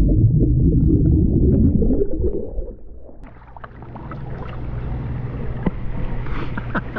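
Underwater bubbling and churning as a person plunges into a swimming pool, heard as a dense low rumble that stops about two and a half seconds in. Then the camera is above the surface, with light splashing and water dripping.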